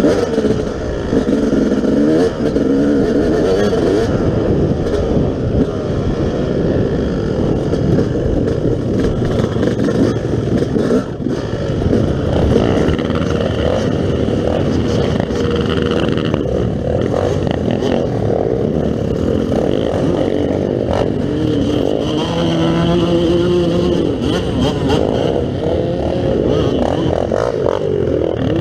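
Yamaha YZ250 two-stroke dirt bike engine running while riding off-road, its pitch rising and falling with the throttle.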